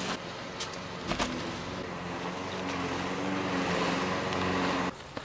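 A steady motor hum, like an engine running, with a few light knocks in the first seconds; it grows gradually louder and cuts off suddenly near the end.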